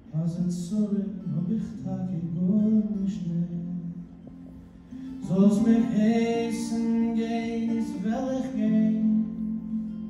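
Acoustic guitar with a harmonica in a neck rack playing the melody in an instrumental break of a folk song, soft at first and louder from about halfway through.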